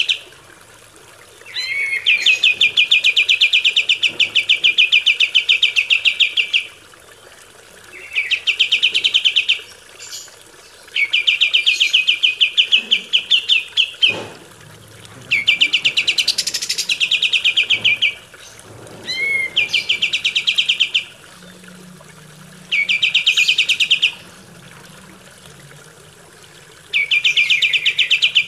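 Kapas tembak, a bulbul, singing a series of fast, rattling trills, each lasting one to five seconds with short pauses between. Some phrases open with a brief rising note.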